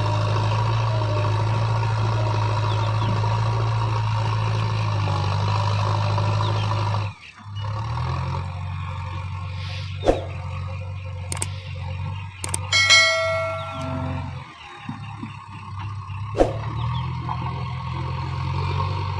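Diesel engine of a JCB 3DX backhoe loader running steadily, dropping out briefly about seven seconds in and then running on quieter. Several sharp metallic knocks and a short ringing clang sound over the engine in the second half.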